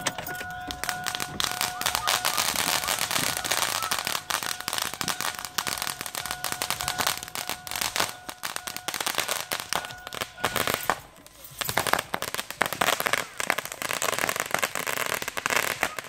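Consumer fireworks going off: a ground fountain and aerial cake shells crackling with rapid, dense pops, over a steady high whistle that cuts out about eleven seconds in. After a short lull the crackling and popping pick up again.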